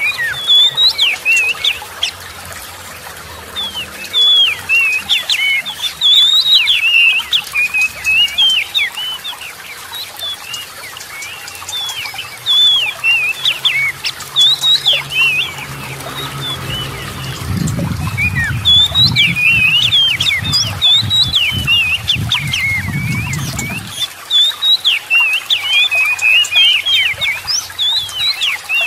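Oriental magpie-robin singing a fast, varied song of sharp chirps and whistles in phrases with short pauses. A low rumble runs underneath for several seconds about two-thirds of the way through.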